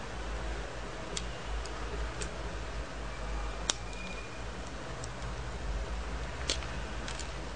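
Back cover of a Desire G7 (A3) Android phone being pressed and snapped onto the body: a string of small, sharp clicks, one sharper near the middle and a few close together near the end, over a steady low hum.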